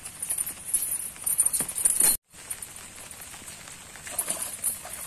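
Heavy metal chain worn over the body clinking and jangling in irregular clicks as he moves; the sound cuts out completely for a moment about two seconds in.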